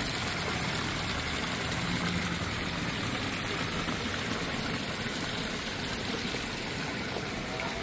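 Fountain water splashing steadily into a pool, jets pouring from the spouts of stone statues into a channel.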